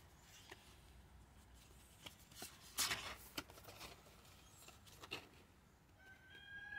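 Faint rustles and clicks of a card-stock accordion postcard strip being unfolded by hand, the loudest about three seconds in. A faint steady high tone begins near the end.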